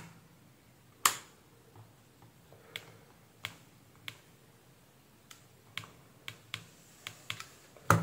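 Sharp plastic clicks and light taps from pressing the buttons of a digital multimeter and handling its test probes. There is a loud click about a second in, a scatter of lighter ticks after it, and another loud click near the end.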